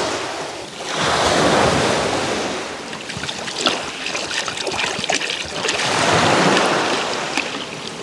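Sea waves breaking on a pebble beach, two surges swelling and fading about a second in and around six seconds in, with a crackle of small clicks between them.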